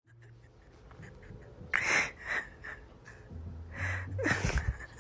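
Short, breathy huffs and snorts: a few quick bursts of breath about two seconds in and again near the end.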